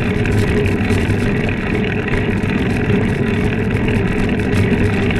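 Steady rushing wind and tyre rumble of a mountain bike in motion, picked up by a camera riding along on the bike.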